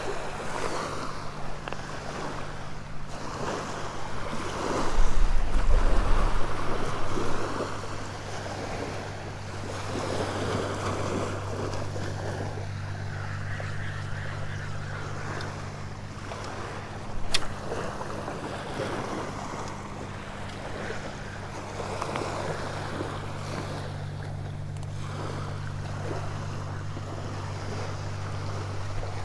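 Small waves lapping and washing onto a sandy shore, with wind buffeting the microphone, strongest in a gust about five seconds in. A single sharp click sounds about halfway through, over a steady low hum.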